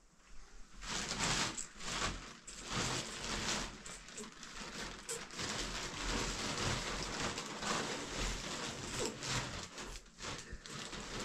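Thin plastic bag rustling and crinkling as it is handled, a dense run of small crackles starting about a second in.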